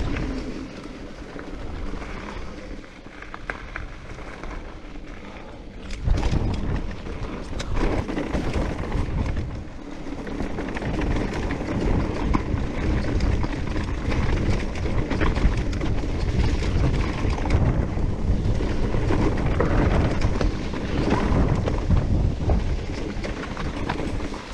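Riding noise from a Giant Reign E+1 electric mountain bike going down a rough, wet trail: tyres rumbling and the bike rattling over the ground, with wind buffeting the microphone. It gets louder from about six seconds in and stays loud.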